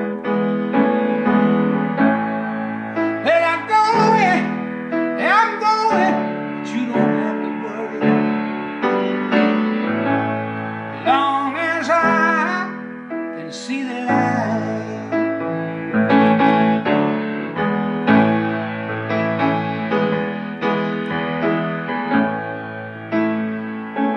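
Music: sustained keyboard chords over a low bass line, changing every second or two, with a wavering melody line at a few points.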